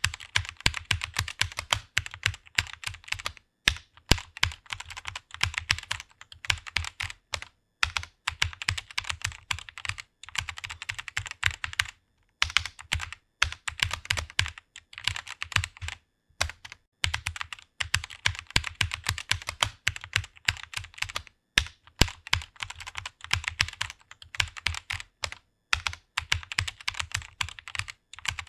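Computer keyboard being typed on quickly and continuously, a rapid stream of key clicks in runs of a few seconds with short pauses between them.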